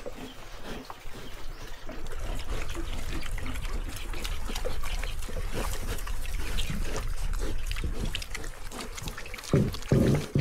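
Pigs rooting and snuffling close up in the bedding, a dense run of short clicky, wet-sounding noises, with two loud grunts near the end.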